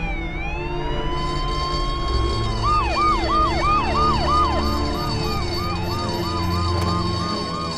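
Several police car sirens sounding together at different pitches in a slow rising-and-falling wail. About two and a half seconds in, one switches to a fast yelp of about three cycles a second.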